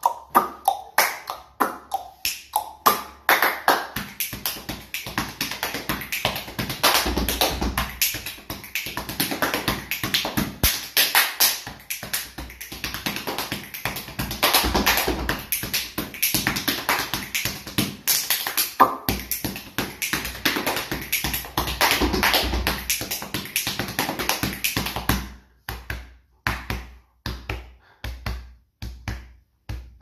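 Body percussion: fast, rhythmic hand claps and slaps on the legs and chest, mixed with mouth sounds. The strikes come thick and fast until near the end, then thin out to a few separate hits.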